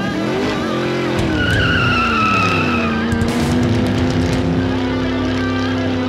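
Revving car engine and tire squeal sound for a toy remote-control car. The engine sound rises and falls in pitch, a tire squeal runs from about a second and a half to nearly three seconds in, and then the engine holds a steady note.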